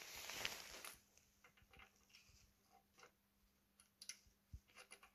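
Faint, scattered metal clicks and ticks as an oil line fitting is set into a hole in a Ford Model T's transmission cover and screwed in by hand, with a cluster of clicks near the end. A brief rustle of handling comes in the first second.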